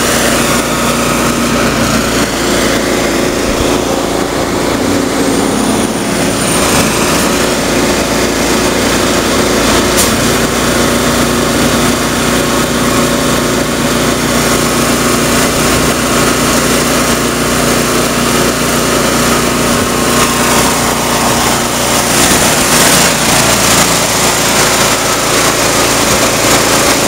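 Air compressor running steadily while a tractor tire is aired up to seat its bead on the rim.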